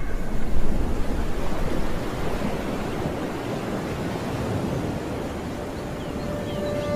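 Steady rushing of wind and sea surf, a little louder in the first couple of seconds and then easing slightly.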